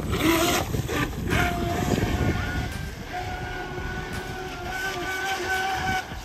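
Electric outboard drive of a radio-controlled racing hydroplane whining at full speed with a steady pitch, running a 38 mm plastic prop on a 3S battery. A splashy hiss comes near the start as the boat gets away across the water.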